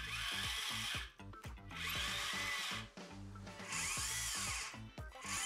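The RC tank's small DC motors whirring on the bench in four bursts of about a second each, each rising and then falling in pitch. They are being run through a dual-channel DC motor driver fed by an Arduino PWM translator, and the setup is working.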